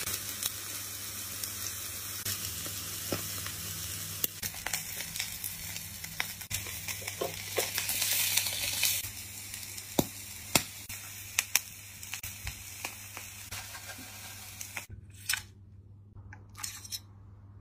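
Skewered slices of meat sizzling on a hot grill grate, a steady high hiss with frequent crackles and pops as juices hit the heat. The sizzling cuts off abruptly about two seconds before the end, followed by a couple of light knocks.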